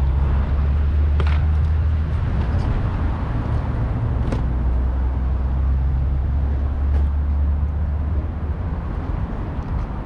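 City street noise: a steady low engine rumble that eases off near the end, with a few faint clicks.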